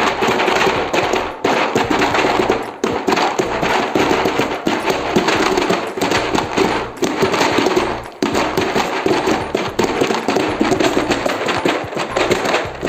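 Homemade ocean drum, a pizza box filled with dried beans, being tilted so the beans roll and rattle across the cardboard in a dense, continuous patter that swells and eases like surf.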